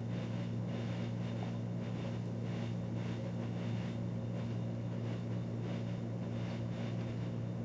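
A steady low hum made of several even pitches, with a faint hiss over it.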